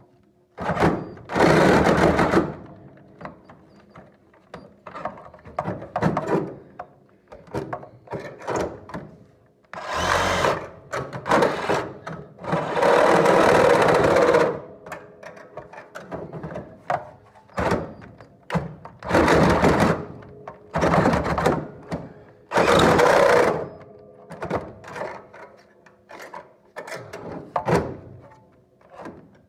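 A power tool trimming a metal part, run in a series of short bursts of one to two seconds with pauses and knocks in between, over a faint steady hum.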